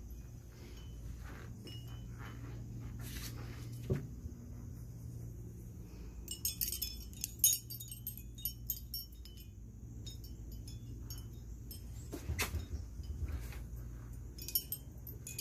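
Handmade glass wind chimes, rings of glass hung on copper wire, clinking against one another as they sway: irregular light, high clinks, sparse at first, then clustering in quick runs about halfway through and again near the end, over a low steady rumble.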